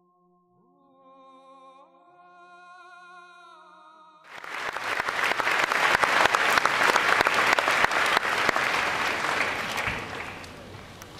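Slow music with long held notes, cut off abruptly about four seconds in by loud applause from a large audience, which dies down near the end.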